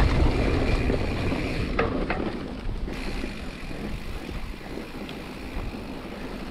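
Mountain bike riding a dirt trail, with wind rushing over the camera microphone and the tyres and frame rattling. There are two sharp clicks about two seconds in, and the rush eases off as the ride goes on.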